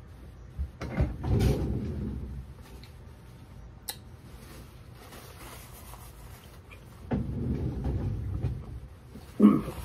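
A man choking on hot sauce that went down his throat: two stretches of low, muffled, stifled spluttering, about a second in and again around seven seconds, then a sharp cough near the end.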